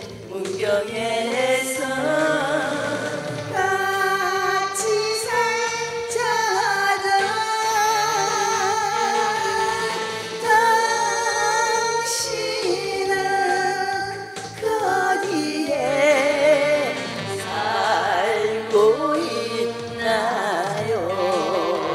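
A woman sings a Korean pop song into a microphone with a wavering vibrato, over backing music with a steady, repeating bass line.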